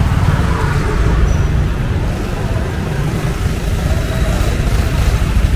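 Street traffic in a busy market: a steady rumble of motorbike and car engines, with faint voices in the background.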